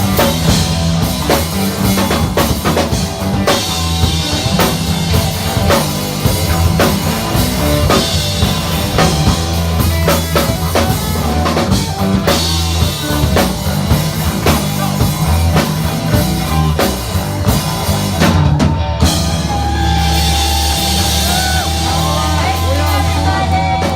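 Live funk-rock band playing, with a drum kit and heavy bass driving a steady beat. About three-quarters of the way through the drums break off and the band holds a closing chord while the guitar bends notes over it.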